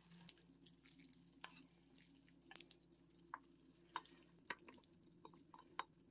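Faint, scattered small clicks and soft taps of wooden chopsticks against a ceramic bowl as scrambled egg is scraped out of it into a pan, over a low steady hum.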